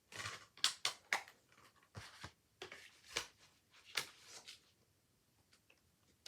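Rustling and clicking of a paper insert and plastic Blu-ray case being handled, a quick irregular run of about a dozen crisp strokes that dies away in the last second and a half.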